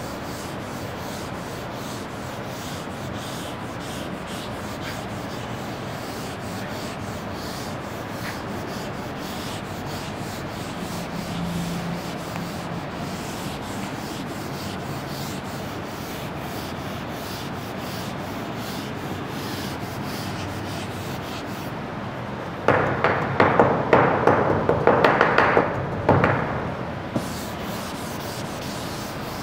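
A duster rubbing on a classroom board, with a few seconds of loud, quick back-and-forth strokes near the end, over a steady hiss.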